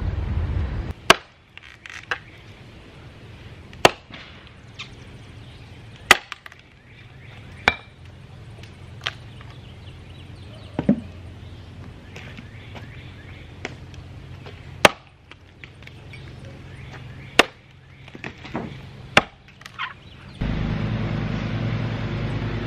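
An axe chopping rotten wood out of a log, with sharp separate strikes about every two seconds. Near the end a steady low hum takes over.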